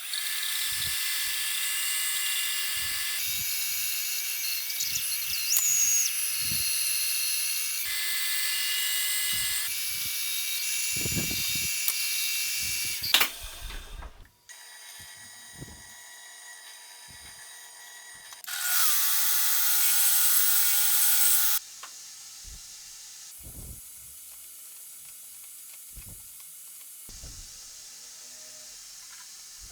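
Power tools running in short, cut-together clips: a loud steady run with abrupt changes for the first dozen seconds, then quieter workshop knocks, and another short loud run of a tool with a steady pitched whine about two-thirds through.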